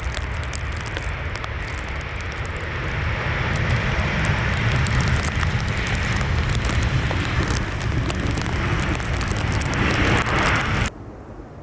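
Jet airliner passing close, its engine rumble and rushing noise swelling a few seconds in and growing brighter near the end, then cutting off suddenly.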